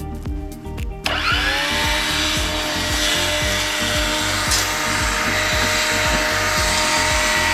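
A string trimmer (weed eater) starts about a second in, its motor spinning up quickly and then running steadily at high speed. Background music with a steady beat plays underneath.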